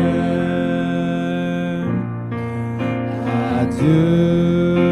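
Worship song sung to electric keyboard accompaniment: long held sung notes over sustained keyboard chords, a brief break about two seconds in, then a new phrase.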